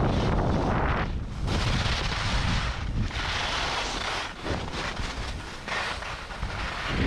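Wind buffeting the microphone of a skier's point-of-view camera at speed, with the hiss and scrape of ski edges on packed snow swelling and fading with each turn as the skier slows.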